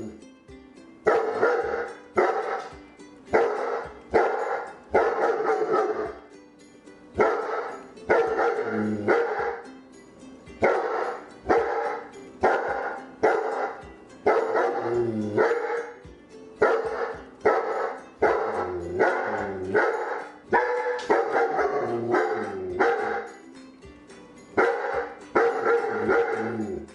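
A dog barking loudly and repeatedly, with a new burst of barking about every second or so, over background music.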